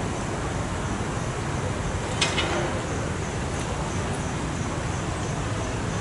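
Steady low rumble of city traffic noise, with a brief sharp clink about two seconds in.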